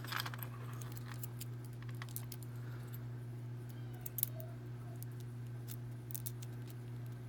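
Small metal clicks and light scrapes as a thin shim is worked into a padlock's cylinder, over a steady low hum.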